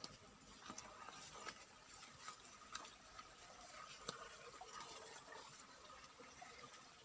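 Near silence: faint outdoor ambience with scattered soft clicks.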